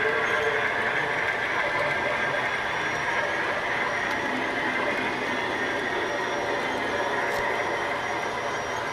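Model railroad freight cars rolling along the track: a steady, even rattle and hum of small metal wheels on the rails.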